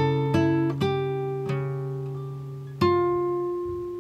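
Background music on acoustic guitar: plucked notes and chords struck several times in the first second and a half, then another chord near the end, each ringing out and fading.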